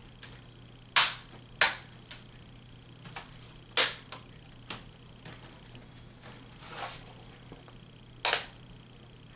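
Plastic snap-fit clips of a laptop screen bezel clicking into place as it is pressed home by hand: four loud sharp snaps spread out, with fainter clicks between and a short rustle of handling.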